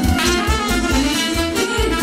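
Romanian folk dance music played by a band: an instrumental lead melody over a quick, steady bass beat.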